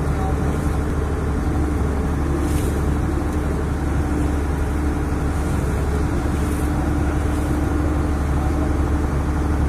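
A boat's engine running steadily under way, heard from on board as a constant low drone with a steady hum in it.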